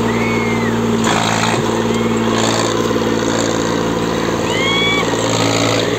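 Diesel tractor engine running steadily at high revs while pulling on a tow rope in a tractor tug-of-war. Crowd noise sits underneath, with a few short whistles near the start and again about two-thirds of the way in.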